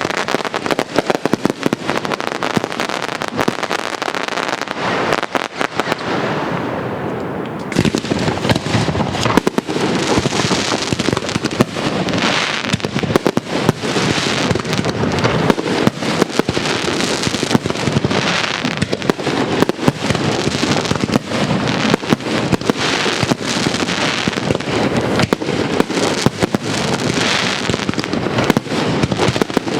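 Castillo aerial fireworks barrage: a dense, unbroken run of shell bursts and bangs with crackling. From about ten seconds in, the crackle swells again every second or two.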